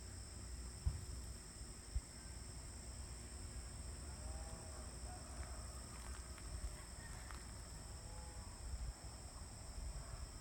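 Insects chirring steadily at a high pitch over a low rumble, with two sharp knocks about one and two seconds in and a few faint short calls in the middle.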